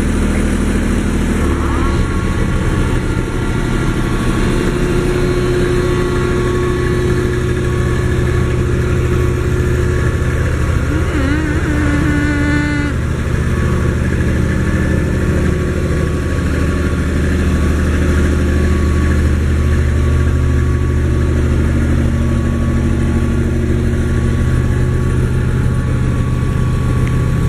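Sakai TG25 road roller's diesel engine running steadily, with a change in its note about a second and a half in.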